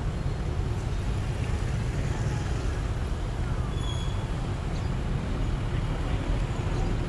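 Steady low rumble of a Sumitomo excavator's diesel engine running, with a short faint high tone about four seconds in.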